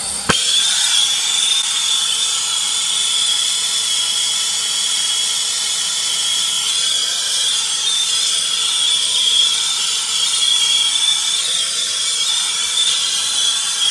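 Turbo torch burning steadily, heating a fluxed copper pipe fitting for sweat soldering. Its flame makes a loud, even hiss with a steady high whistle running through it.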